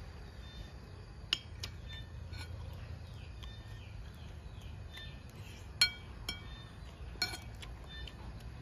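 A metal spoon clinking and scraping on a plate while someone eats, a handful of sharp clinks, the loudest about six seconds in.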